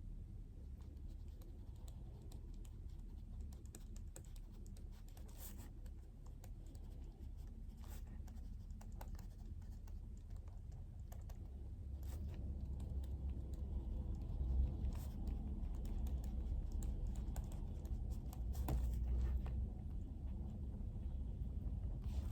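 Typing on a computer keyboard: irregular key clicks over a steady low room hum.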